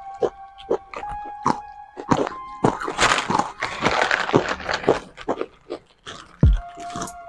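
Background music with held notes, over crunching of Kurkure corn-puff snacks being chewed and the crinkle of snack packets being handled.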